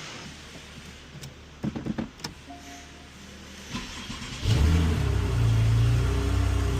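A few clicks and knocks, then the 2016 Porsche 911 GTS's 3.8-litre flat-six starts abruptly about two-thirds of the way in and settles into a steady idle. It is being run briefly after fresh oil and is not yet warm.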